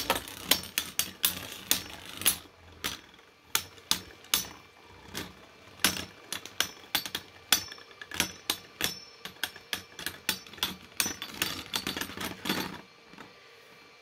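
3D-printed plastic beyblades clashing in a stadium: rapid, irregular sharp clicks and knocks, several a second, that stop near the end.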